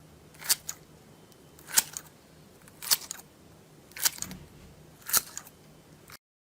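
Five sharp clicks at an even pace, about one a second. Each is followed by a fainter second click.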